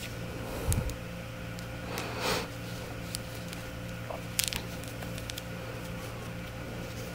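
Faint clicks and rustles of hands working a crochet hook through yarn, with a few short sharp ticks, over a steady low hum.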